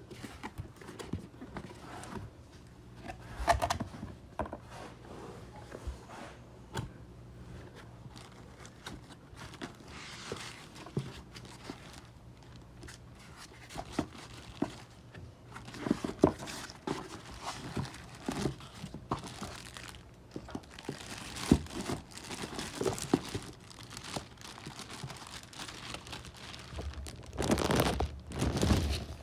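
Packaging being handled and opened: irregular crinkling and rustling, with scattered small knocks. A louder, longer burst of crinkling comes near the end.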